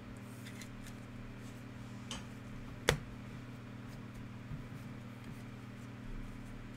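Trading cards handled by hand, a card slid into a clear plastic top loader with light plastic rustles and small clicks, and one sharp click about three seconds in. A steady low hum runs underneath.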